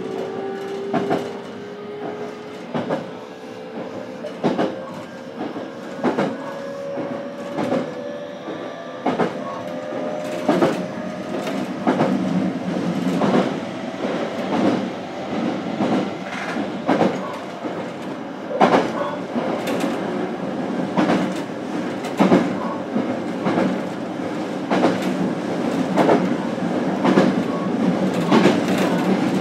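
Onboard running sound of a JR Kyushu BEC819-series DENCHA battery-electric railcar, heard inside the motor car: the traction motor whine rises steadily in pitch as the train accelerates and fades after about twelve seconds, while the wheels click over rail joints at a quickening rhythm.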